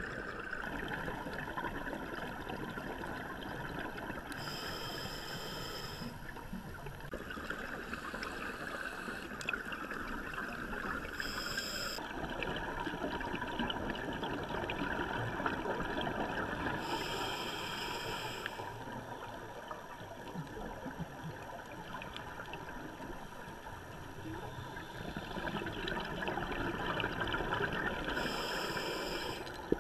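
Underwater sound of a scuba diver breathing through a regulator: a constant rush of water and bubble noise, with a short hiss on each of four inhalations several seconds apart.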